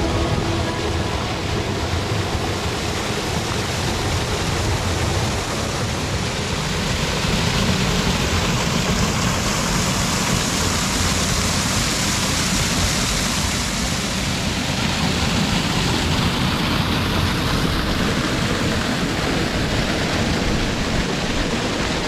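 Small cascading waterfall splashing into a rock pool: a steady rush of falling water, a little brighter and hissier in the middle.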